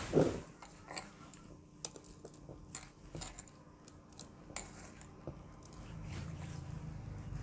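Faint, scattered light clinks and taps as hands scrape spinach paste off a stone grinding slab (sil-batta) into a steel bowl, with bangles jingling against the bowl, over a faint steady hum.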